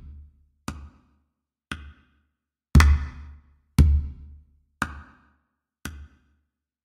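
Soundtrack music: a slow, sparse drum beat with one hit about every second, several of them with a deep bass-drum thump.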